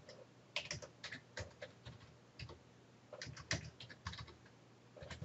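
Typing on a computer keyboard: faint, irregular keystrokes.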